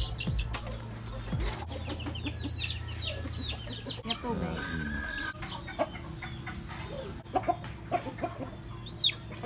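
Chickens and chicks calling: many short, quick falling peeps, with a few louder, sharper peeps near the end.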